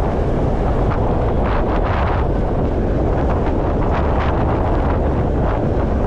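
Wind buffeting the microphone: a steady low rumble with a few brief rushes of hiss.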